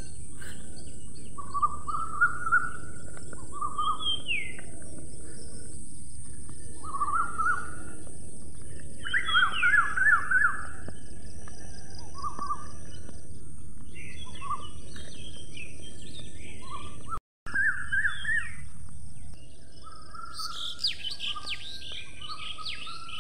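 Birds chirping and singing in short, repeated phrases over a steady high-pitched hiss, with a brief gap in the sound about 17 seconds in.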